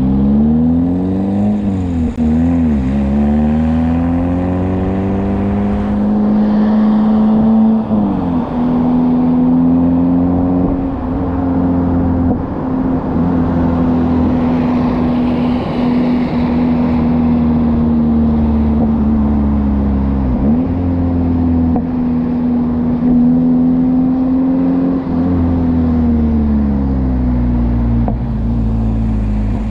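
Suzuki Ignis Sport's 1.5-litre four-cylinder engine heard through its stainless-steel cat-back exhaust while driving. It revs up in short pulls with quick changes, climbs steadily with a brief dip about eight seconds in, then holds a steady drone at cruise with another short dip about twenty seconds in. It falls in pitch as the car slows near the end.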